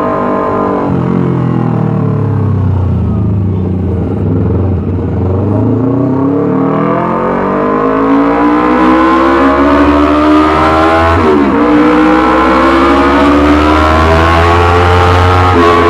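Yamaha R25 parallel-twin engine running loud through a Racefit Slash aftermarket exhaust. The revs fall over the first few seconds, then climb steadily, dip sharply for a moment about eleven seconds in, and climb again.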